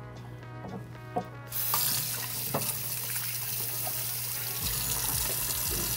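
Kitchen sink tap turned on about a second and a half in, water running steadily into the sink while hands are washed of oil.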